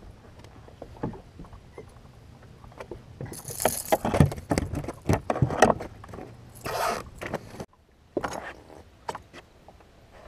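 Handling noises on a bass boat deck as a freshly caught bluegill is unhooked and the rod and line are worked: scattered clicks, scrapes and rustles, several heavier knocks around the middle, and two short hissing bursts.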